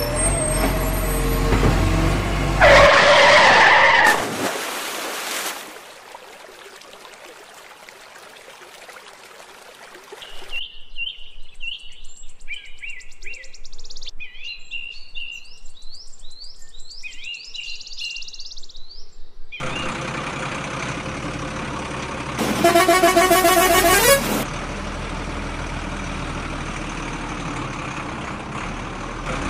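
Dubbed truck sound effects: an engine running with a loud horn blast about three seconds in, then a stretch of short high chirps. After that the engine runs steadily again, with a second long horn blast, rising slightly in pitch, past the middle.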